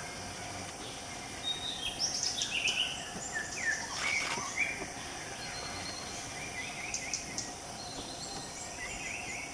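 Forest ambience: a steady high insect drone with several short bird chirps and whistled calls through the middle, a few more near the end, and one brief sharp click about four seconds in.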